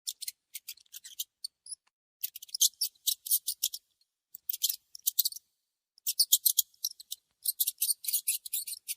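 Rat noises: quick runs of short, sharp, high-pitched ticks and squeaks, coming in five clusters separated by brief pauses.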